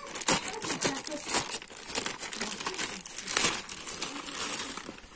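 Clear plastic parts bag crinkling and rustling in irregular crackles as it is handled and opened to take out a new piston kit, dying down near the end.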